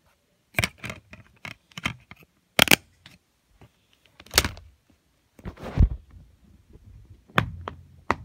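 Irregular plastic clicks and clacks from handling an open DVD case, with a short rubbing noise about two-thirds of the way through and two more sharp clicks near the end.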